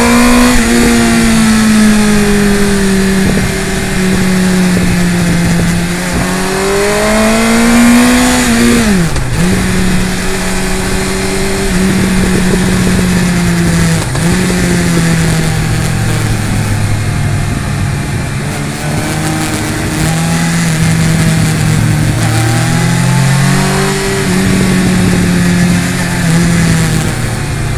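Inline-four 1000 cc sport bike engine heard up close while riding, its note rising and falling with throttle and gear changes: it climbs steadily for a couple of seconds, then drops sharply about nine seconds in. A constant rush of wind and road noise runs underneath.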